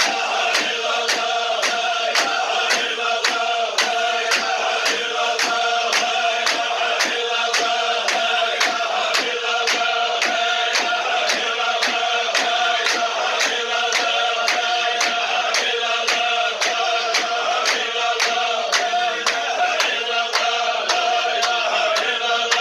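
A group of men chanting a Sufi zikr in unison, with a sharp rhythmic beat about twice a second under the voices.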